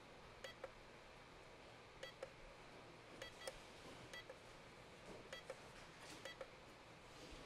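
Near silence with a handful of faint, short clicks from the push buttons of a hashboard tester being pressed.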